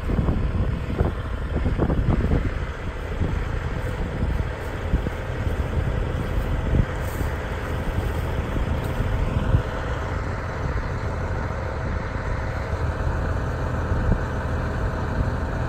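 CAT C15 turbo diesel in a Peterbilt 378 crane truck idling steadily, with wind buffeting the microphone during the first few seconds.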